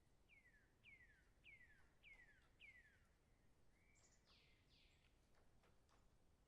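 A bird singing faintly: a run of five clear whistles, each sliding down in pitch, about 0.6 s apart, followed about four seconds in by two or three harsher, buzzier notes. A few faint clicks sound in the background.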